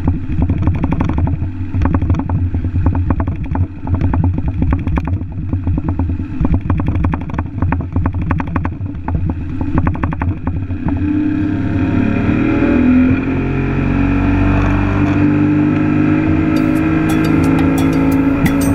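Small boat's outboard motor running steadily at speed, with rough wind and water noise buffeting the microphone. About halfway through this smooths into steadier sustained tones, and music with quick percussion ticks comes in near the end.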